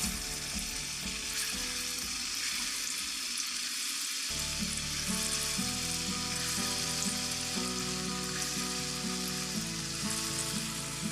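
Pieces of chilli-masala-coated salmon frying in hot oil, with a steady sizzle.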